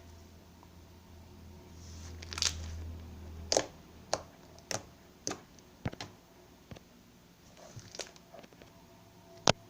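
Slime being squeezed and poked, giving sharp pops and clicks about every half second in the middle, with one loud pop near the end; a low hum runs under the first few seconds.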